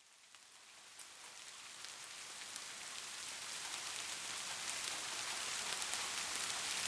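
Steady rain, with scattered drops ticking on a surface, fading in gradually from silence and growing louder throughout.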